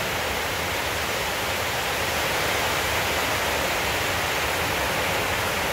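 A steady, even rushing noise with nothing standing out from it.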